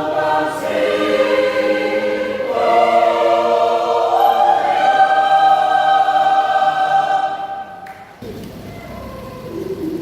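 Church choir singing in harmony, swelling into a long held final chord that cuts off sharply about eight seconds in.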